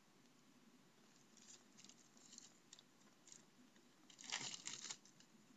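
Faint crinkling and rustling of a sanitary pad's plastic wrapper and backing paper being handled, with a louder burst of crinkling about four seconds in.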